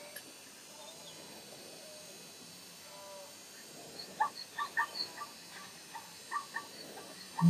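Short, croak-like animal calls coming several a second in uneven runs from about four seconds in, after a quieter start.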